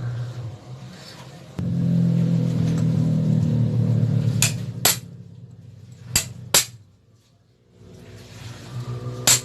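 Sharp metallic clinks of valve springs and small engine parts being handled: two quick pairs of clinks in the middle and one more near the end. A steady low hum runs under the first half and stops about four and a half seconds in.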